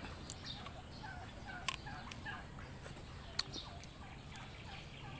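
Faint bird calls from domestic fowl: a run of short notes, about three a second, with two sharp clicks during it.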